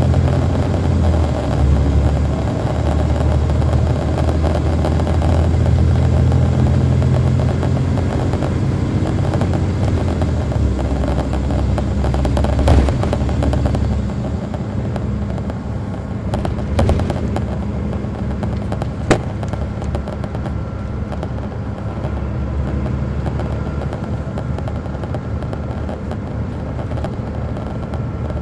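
Caterpillar C13 diesel engine of an MCI D4500CL coach, heard from on board, running hard under load, then dropping to a quieter, lower note about halfway through. Three sharp knocks come in the middle, and a faint steady whine joins in the last part.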